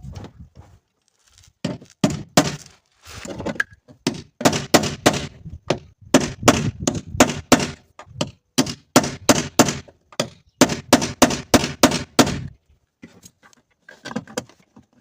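A flat-head screwdriver being struck over and over to break out the rivets holding a door subwoofer speaker in a car door frame: a long run of sharp metal knocks, two or three a second, stopping about twelve seconds in.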